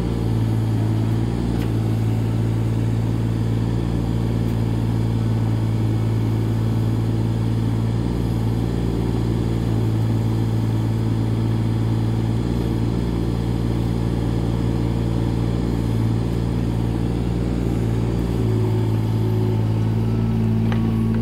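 Tata Hitachi excavator's diesel engine running steadily at a constant pitch while the boom and bucket work.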